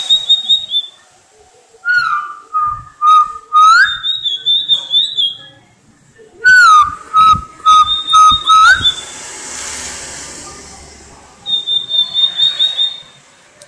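Tledekan lait songbird singing: phrases of quick, high, trilled whistles alternating with long, steady, lower whistles that turn upward at the end, repeated in bouts. A few sharp clicks and a short hiss come between bouts about two thirds of the way through.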